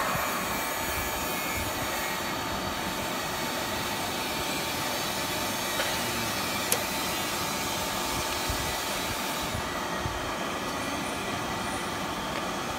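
Rotary cup filling and sealing machine running on a test after its lifting rods were lowered to their lowest setting: a steady mechanical running noise, with a few faint clicks around the middle.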